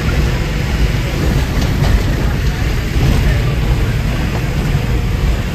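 A bus's engine and road noise, heard from inside the driver's cab while it drives: a steady low rumble with a few light rattles about two seconds in.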